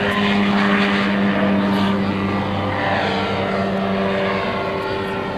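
Ultralight aircraft's engine and propeller droning steadily in flight.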